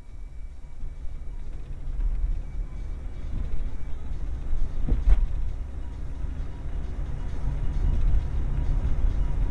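Low rumble of a car's engine and tyres heard from inside the cabin, growing louder over the first few seconds. A single sharp click comes about five seconds in.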